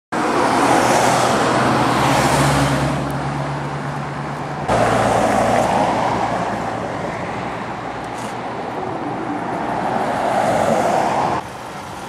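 Road traffic: car tyre and engine noise that swells and fades several times as vehicles pass, broken by sudden cuts about five seconds in and near the end.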